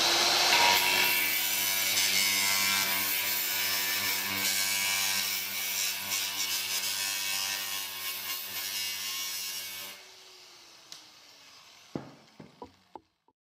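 Makita angle grinder running with a steady whine as its disc grinds the sharp edges off glass mosaic tiles. About ten seconds in it is switched off and spins down, and a few light knocks follow near the end.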